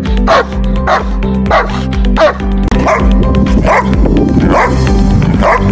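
Large guard dogs barking repeatedly, about two barks a second, over background music: first a Doberman, then, after a cut about two and a half seconds in, a Giant Schnauzer.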